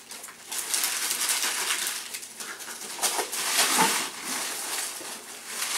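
Christmas wrapping paper being torn and crumpled off a small gift: a rough crackle that starts about half a second in and is loudest around the middle.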